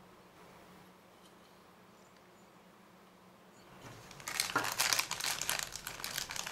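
Clear plastic bag crinkling and rustling as hands pick it up and handle it, starting about four seconds in.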